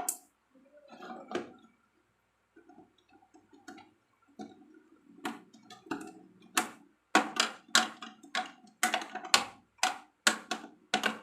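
Small plastic balls of a mini toy billiards set clicking and clacking against each other and the plastic table, a few knocks at first, then a quick run of sharp clacks from about five seconds in.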